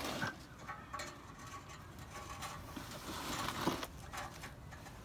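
Faint clicks and scraping of hand tools and metal parts, typical of a new oxygen sensor being fitted under a truck.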